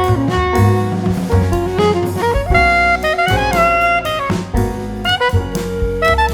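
Background music: an instrumental with a saxophone-like melody over drums.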